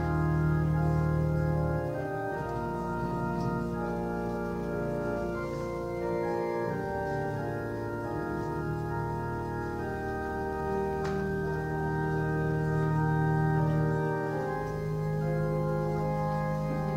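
Organ playing slow, sustained chords that change every second or two over held bass notes, a prelude before the Mass begins.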